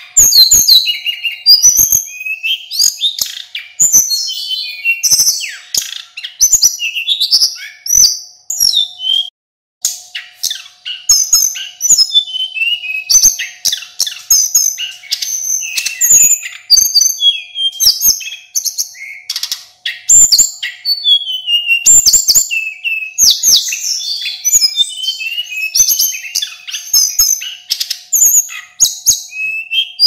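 Male sulingan gunung singing a rapid, unbroken run of varied high whistles, trills and chirps, with a short break just after nine seconds in. A faint steady hum and occasional sharp clicks sit underneath.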